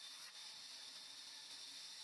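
Near silence: a faint, steady high hiss with no machine sound.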